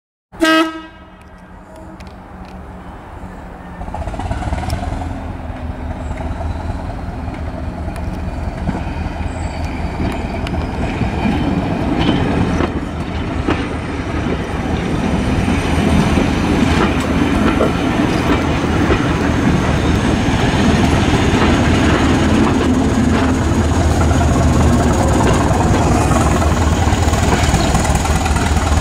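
Class 205 diesel-electric multiple unit sounds a short horn blast, then its English Electric diesel engine runs under power as the train pulls away, growing louder, with wheel clatter over the rail joints.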